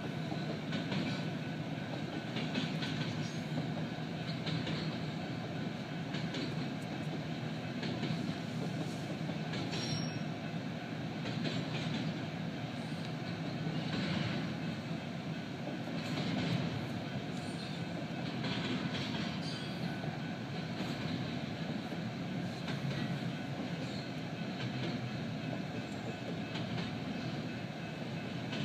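Double-stack container well cars rolling past: a steady rumble and rattle, with a clack of wheels over rail joints every second or two.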